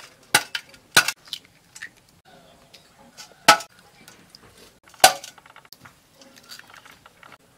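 Hen's eggs being cracked on the rim of a stainless steel bowl: several sharp knocks of shell against metal, the loudest about a second apart at first and then about two seconds apart, with softer clicks of shell between.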